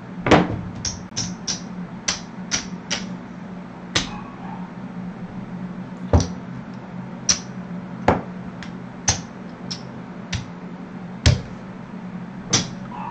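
Casino chips clicking and clacking as losing bets are picked up off a craps layout after a seven-out: a string of sharp, irregular clicks, over a steady low hum.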